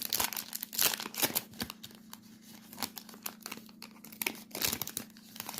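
Trading card pack wrapper being torn open and crinkled by hand: a run of sharp crackles, busiest in the first second and a half and again near the end.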